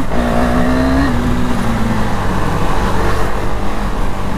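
KTM Duke 390's single-cylinder engine pulling at about 45 km/h, its note rising for about a second, then easing off and holding steady.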